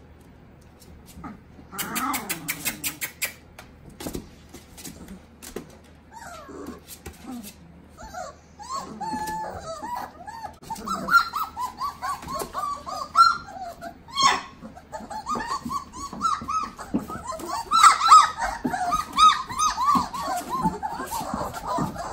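A litter of Great Dane puppies whining and yelping: a busy chorus of many short high cries that builds from about eight seconds in, with a brief burst of scuffling about two seconds in.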